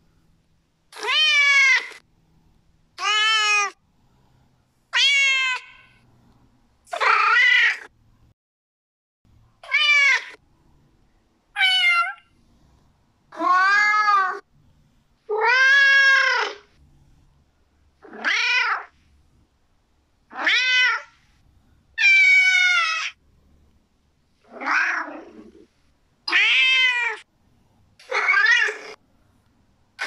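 Domestic cats meowing: about fourteen separate meows, roughly one every two seconds, each about a second long and rising then falling in pitch, some higher and some lower.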